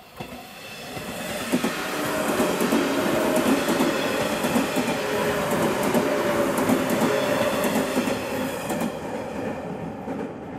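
JR West 115 series electric multiple unit, two sets coupled, passing close by. It swells over the first couple of seconds into a steady running hum with wheels clacking over the rail joints, eases as the last cars go by, and breaks off abruptly.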